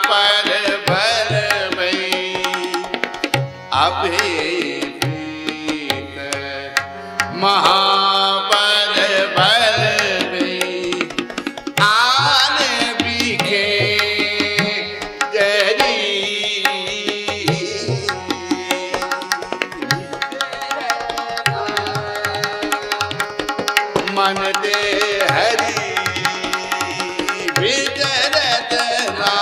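Shabad kirtan: two harmoniums sustaining the melody over a tabla pair playing a steady rhythm, the bayan's low strokes thudding under it. A man's voice sings long, gliding, ornamented phrases over the instruments.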